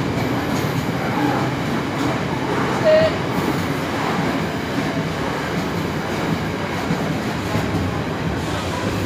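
Intermodal freight train's container wagons passing the platform at speed: a steady rumble and clatter of wheels on the rails, with a brief squeal about three seconds in.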